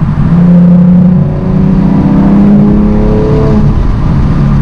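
A 2010 Chevrolet Camaro's V6, breathing through a Volant cold air intake, accelerating under load. The engine pitch climbs steadily for about two seconds, then drops suddenly about three and a half seconds in, as at an upshift.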